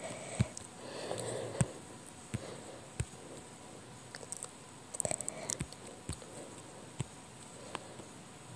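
Scattered sharp taps on a tablet's touchscreen, about a dozen irregular single taps with a quick cluster of them about five seconds in.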